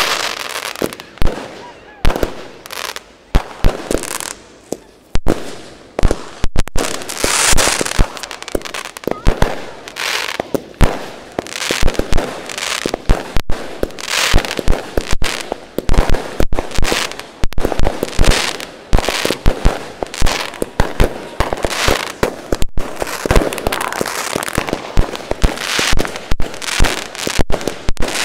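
Aerial fireworks going off in a dense, unbroken barrage: sharp bangs several times a second with crackling between them.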